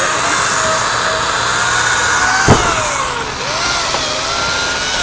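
Angle grinder fitted with a chainsaw bar and chain cutting wood, the motor's pitch dipping and recovering as the chain bites under load. One sharp knock about two and a half seconds in.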